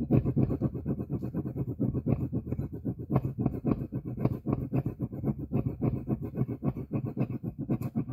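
Rapid, steady scrubbing strokes, about six a second, from hand work on paper on a craft table.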